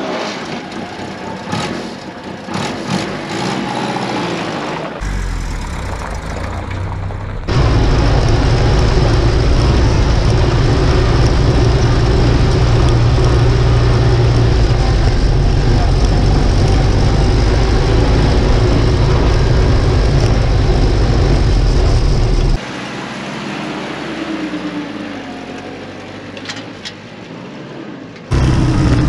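Willys CJ-2A Jeep on large knobby ATV tires driving on gravel and dirt, heard from close under the vehicle: engine and tyre noise with heavy rumble. It comes in several abrupt cuts, and is loudest and steadiest in a long stretch through the middle.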